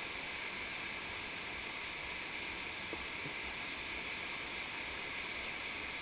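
Shallow rocky stream rushing steadily over stones.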